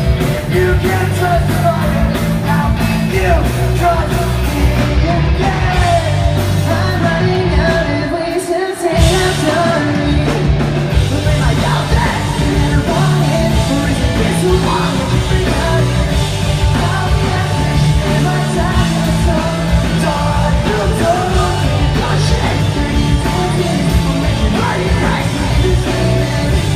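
Pop-punk band playing a song, with a sung and shouted lead vocal over the full band; the low end drops out briefly about eight and a half seconds in before the band comes back in.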